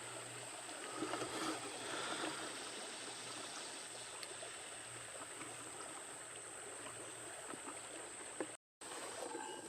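River water flowing, a faint steady rush of current, with a steady thin high tone over it. The sound cuts out completely for a moment near the end.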